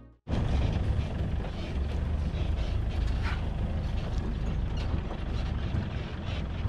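Safari jeep's engine running with a steady low rumble, heard from on board the vehicle. Background music cuts off right at the start.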